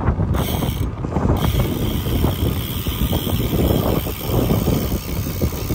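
Wind buffeting the microphone of a rider on a moving bicycle, with an irregular mechanical rattle and clatter throughout.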